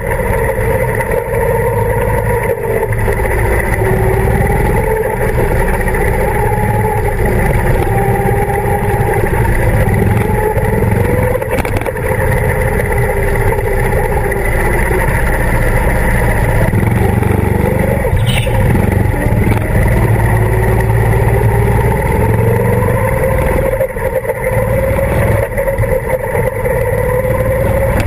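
Go-kart engine running under throttle while lapping an indoor track, its pitch falling as it slows for corners and rising again as it accelerates.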